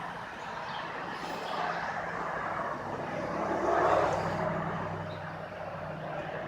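A motor vehicle driving past, its engine hum and road noise swelling to a peak about four seconds in and then fading.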